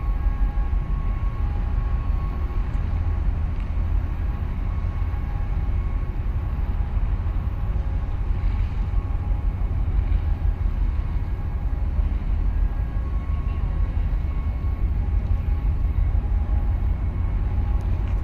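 Low, steady rumble of a 9,200 TEU container ship and its escorting tug passing close by at harbour speed, with faint steady machinery hum tones over it.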